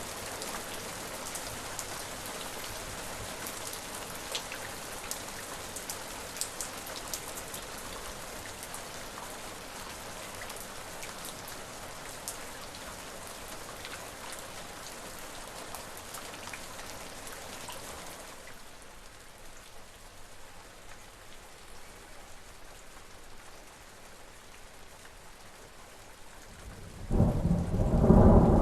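Steady rain with fine pattering drops; about two-thirds of the way through it turns softer and duller. Near the end a loud, low rumble of thunder rolls in.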